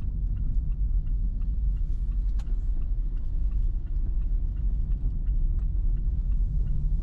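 Steady low rumble of a moving motorbike: engine, road and wind noise on the riding camera's microphone.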